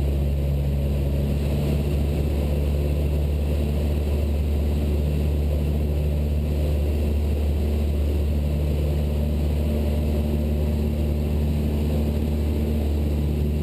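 Cessna 172 Skyhawk's piston engine and propeller droning steadily in flight, heard from inside the cabin.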